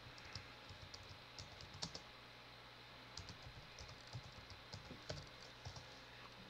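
Computer keyboard typing: faint, irregular runs of key clicks as a short phrase is typed, over a faint steady low hum.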